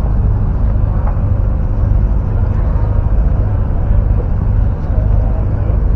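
Steady low rumble of a boat engine running.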